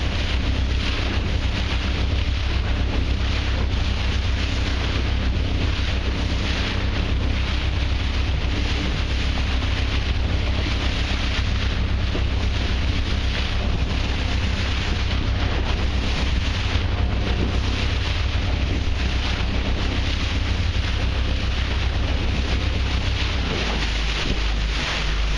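Wind buffeting the microphone over a steady low rumble and the rush of sea water around a moving boat. The low rumble shifts lower about two seconds before the end.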